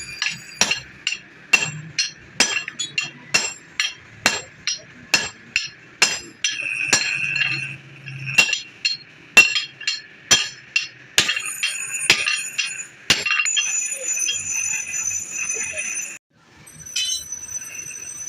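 Hammer striking steel on an anvil, about two blows a second, each with a bright metallic ring: a cleaver blade being forged. Near the end the blows give way to a steady high-pitched ringing that cuts off suddenly.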